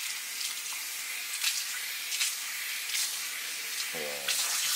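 Water spraying steadily from a salon shampoo-bowl hand sprayer onto wet hair, with a few soft crackles, while hair dye is rinsed out.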